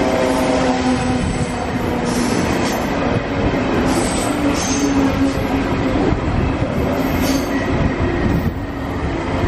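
DB Class 140 electric locomotive hauling flat wagons loaded with rails, rolling past over the tracks: a steady rumble and rattle of wheels, with drawn-out tones that waver slightly above it.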